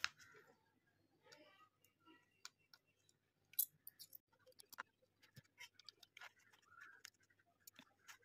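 Near silence with faint, scattered clicks and ticks from handling a circuit board and touching it with a soldering iron while desoldering capacitors. The loudest click comes about three and a half seconds in.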